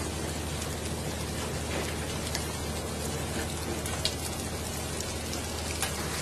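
Steady pattering of water on a hard surface with scattered sharp ticks, over a low steady hum.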